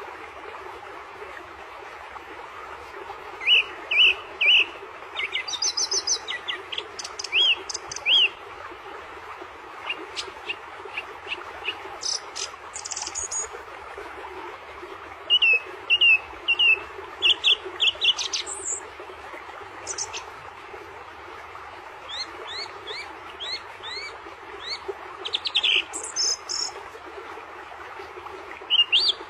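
Birds chirping and singing in bursts of quick repeated notes and short trills, with pauses between phrases, over a steady background hiss.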